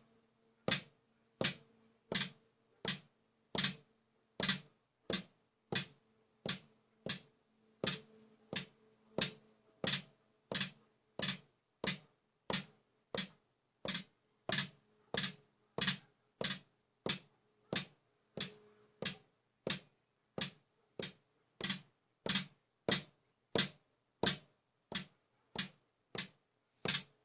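Drum sound triggered from the Alesis V49 keyboard's drum pads, struck at an even pace of about one and a half hits a second. The pads have a fault that the owner describes as a double MIDI note for every hit, regardless of the sensitivity setting. A faint steady hum runs underneath.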